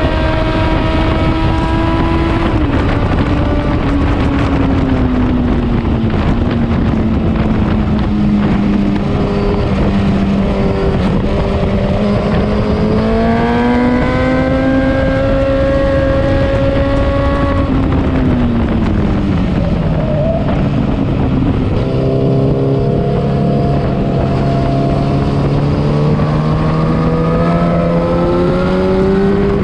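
Motorcycle engine at track speed, its note climbing under acceleration and falling away as the rider rolls off and slows, several times over. The pitch drops steeply about two-thirds through and climbs again near the end, under heavy wind rush.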